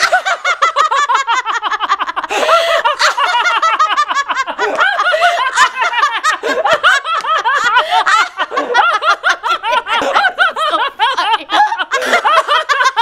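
A woman laughing loudly and without let-up, a fast string of high-pitched ha's with only brief catches of breath.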